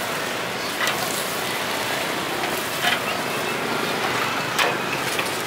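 Meat skewers sizzling over an open charcoal fire: a steady, spitting hiss, with a few short clicks about a second in, near three seconds and near the end.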